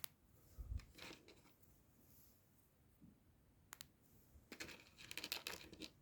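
Small Lego Technic plastic parts clicking and rattling faintly as track links are handled and snapped together, a few separate clicks and then a quick run of clicks near the end.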